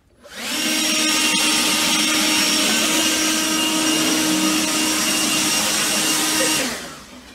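Handheld leaf blower running at full speed. It comes up to speed within about half a second, holds a steady rushing whine for about six seconds, then winds down near the end.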